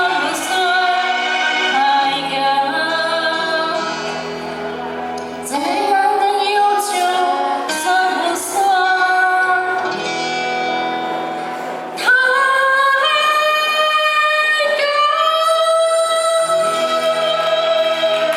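A woman singing a pop song with instrumental accompaniment in a large hall. The music gets louder about twelve seconds in, and the song closes on a long held note.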